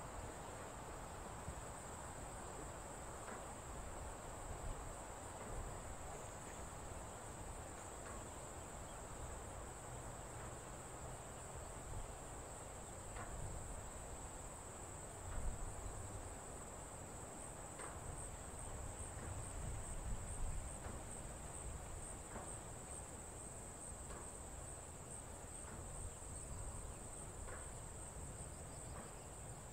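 A steady, high-pitched chorus of insects, with a low background rush and a few faint knocks and clicks.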